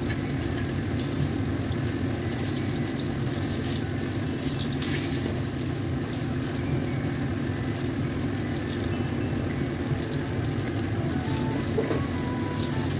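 Pork pieces deep-frying in hot oil in a wok: a steady sizzle with scattered crackles, stirred with a spatula, over a steady low hum.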